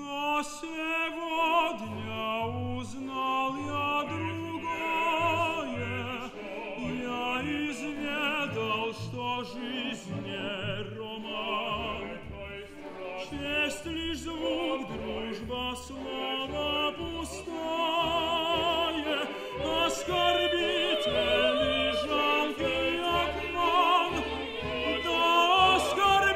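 Operatic singing with wide vibrato over a full symphony orchestra, the low strings and bass keeping up a repeated pulse of short notes.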